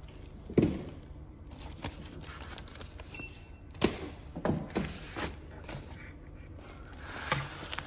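Parcels being set down and handled on a post office counter: a few dull thumps and knocks, the loudest about half a second in, with a short electronic beep a little after three seconds.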